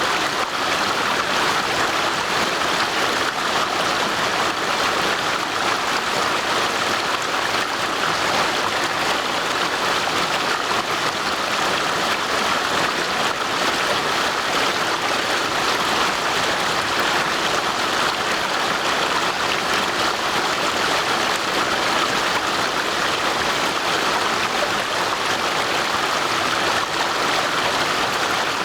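A stream rushing over stones, a steady unbroken sound of running water.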